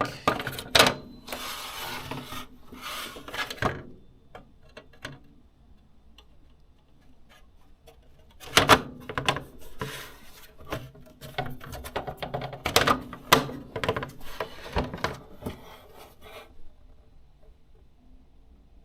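Case of a Hikvision DS-7108NI-Q1/8P network video recorder being closed up by hand after a hard drive is fitted, with scraping and sharp clicks. The handling comes in two spells, one at the start and a longer one from about halfway through.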